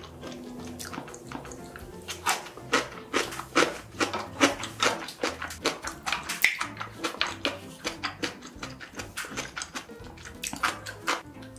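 Close-up wet eating sounds: a person chewing and smacking soft, sauce-coated food, with clicks coming about two to three times a second.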